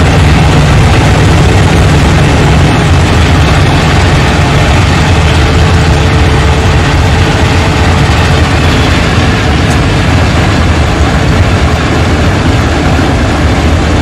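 Swaraj 8100 EX combine harvester cutting rice, running steadily under load: a continuous deep engine hum over a broad rush of machinery noise.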